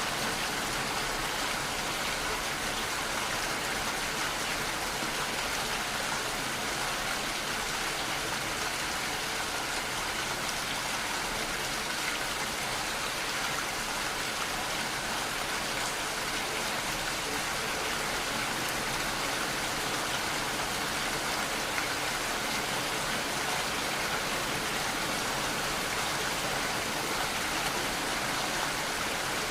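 Steady rainfall, an even hiss of rain with no let-up or change.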